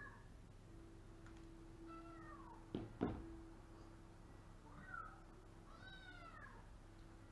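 A domestic cat meowing three times from inside a wicker carrier, each meow falling in pitch, the last one longer. Two sharp knocks in quick succession about 3 seconds in are the loudest sounds, over a faint steady hum.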